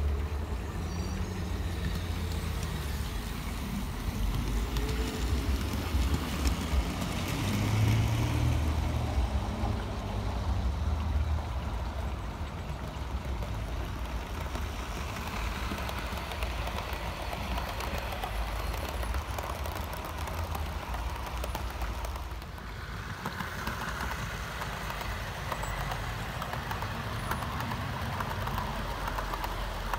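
OO gauge model trains running on the track: a steady low rumble of wheels and motors, with a finer clicking rattle in the second half as the coaches pass close by.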